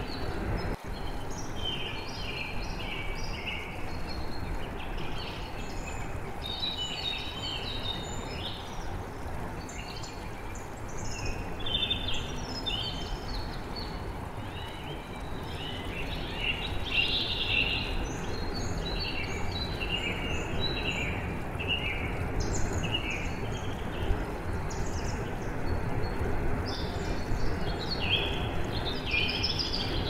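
Steady rush of flowing water, with many songbirds chirping and singing over it in short, overlapping phrases.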